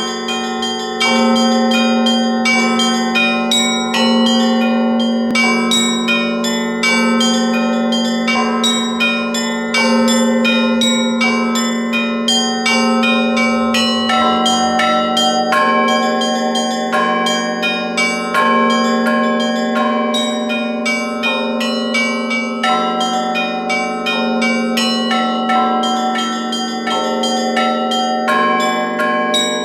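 Russian Orthodox church bells ringing a festive peal: rapid, continuous strokes of small bells over deeper bells that sound again every few seconds, all ringing on and overlapping.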